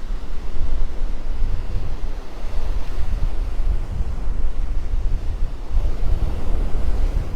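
Wind buffeting the microphone in an uneven low rumble, over the wash of surf on the beach.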